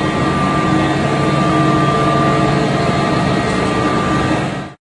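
Space station sound effect: a steady mechanical hum with several held tones, cutting off suddenly near the end.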